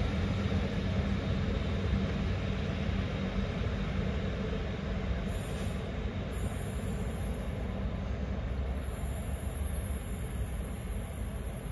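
Class 156 diesel multiple unit pulling away, its underfloor diesel engines running steadily. The sound fades gradually as the train moves off, and a low steady tone drops out about three and a half seconds in.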